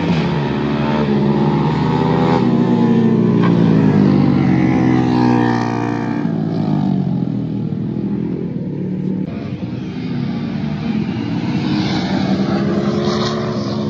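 Motorcycle engine revving and changing pitch as the bike is ridden through a bend. The pitch rises over the first few seconds, drops around the middle, then the engine grows louder again as it passes close near the end.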